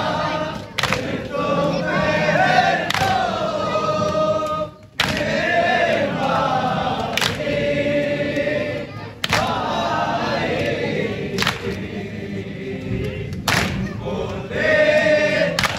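Men's voices chanting a nauha, a Shia mourning lament, together in unison, with a sharp beat about every two seconds keeping time.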